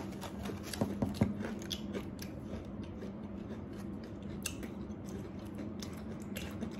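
Chewing and crunching of crispy cereal-coated fried chicken: a steady run of small crisp crunches and clicks from the mouth.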